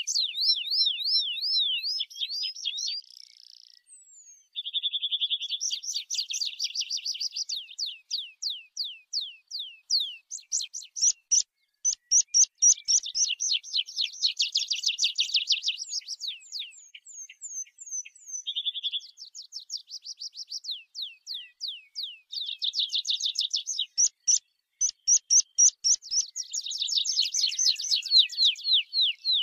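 Tree pipit singing: phrase after phrase of quickly repeated high notes, fast trills and sharp down-slurred notes, each phrase changing speed, with brief pauses between phrases.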